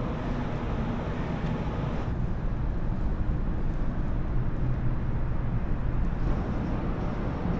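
Steady low rumble of engines and vehicle noise, a little louder in the middle.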